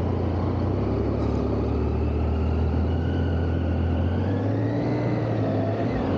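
Triumph Tiger 800's three-cylinder engine running as the motorcycle rides along a city street, under a heavy steady rumble of wind on the microphone. Faint engine tones rise in pitch around the middle as it picks up speed.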